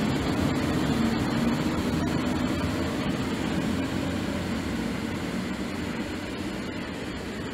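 PKP ET41 two-section electric locomotive running light as it departs, a steady hum with a low held tone that slowly fades as it draws away.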